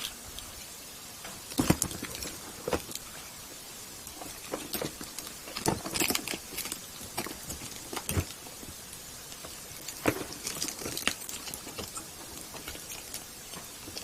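Irregular light taps and clicks, about a dozen spread unevenly, over a steady background hiss.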